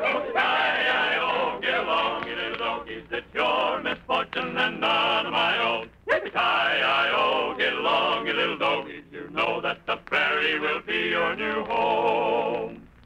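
Men's voices singing a song in phrases, with wavering held notes, on an old radio recording with a narrow, muffled sound. The singing stops abruptly near the end.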